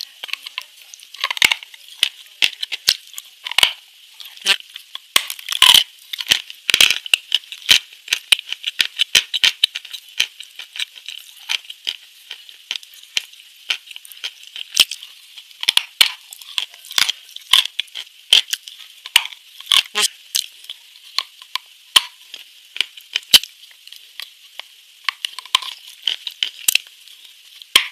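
Close-miked chewing of a crumbly white food: irregular sharp crunches and wet mouth clicks, several a second, with short pauses between bites.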